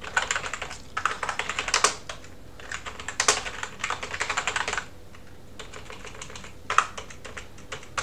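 Rapid typing on a computer keyboard, in several quick runs of keystrokes with short pauses between.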